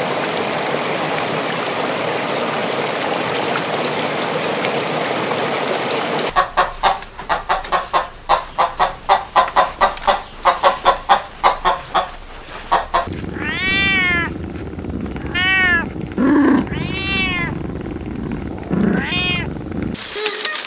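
A steady rush of water for about six seconds, then hens clucking in quick, short, repeated notes, then a cat meowing several times in drawn-out calls that rise and fall in pitch.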